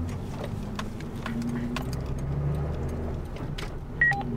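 Vehicle engine and road noise heard inside the cab as it pulls out onto the road and drives off, with the turn signal ticking about twice a second. A short two-tone electronic beep sounds near the end.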